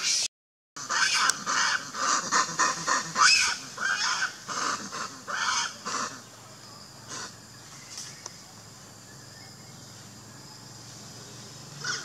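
Macaque calling: a quick run of short, high calls, several a second, that stops about six seconds in.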